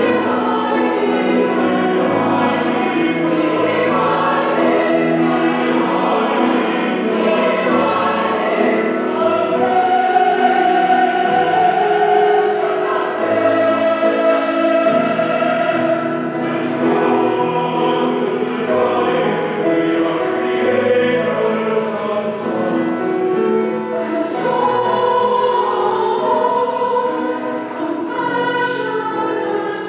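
Church choir of mixed men's and women's voices singing in harmony, with long held notes.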